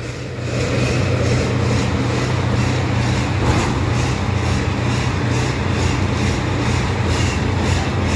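Combine harvester's diesel engine running steadily during a test run after repairs, picking up slightly about half a second in, with a faint rhythmic pulsing about three times a second.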